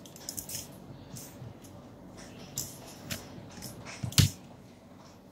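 Handling noises from a large plastic-and-metal Transformers action figure being moved and positioned on a table: light clicks and rustles, then a single sharper knock about four seconds in as it is set down.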